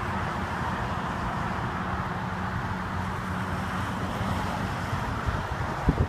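A car engine idling steadily, with wind noise on the microphone.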